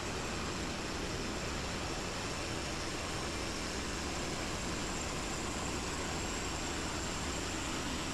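Woodland Mills HM122 sawmill's gas engine running steadily.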